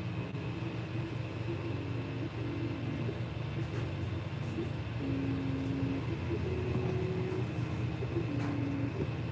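Creality 3D printer printing a first-layer test pattern: a steady fan hum with the stepper motors whining in short tones that jump to a new pitch each time the print head changes speed or direction.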